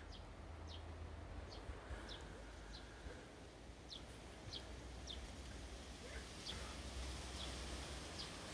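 A small bird calling: short high notes, each falling in pitch, repeated at uneven gaps about once or twice a second, over a faint low rumble.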